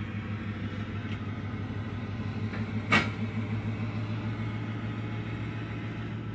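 Steady, even engine rumble with a fast pulsing throb. One sharp click comes about three seconds in.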